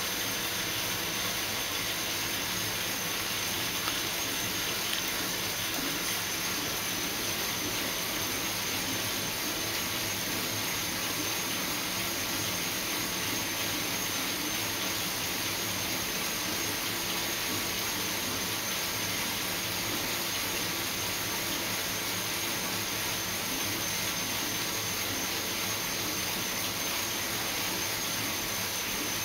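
Bicycle on a wheel-on indoor trainer under steady pedalling: the rear tyre spinning on the trainer roller gives a steady hiss with a thin high whine over it.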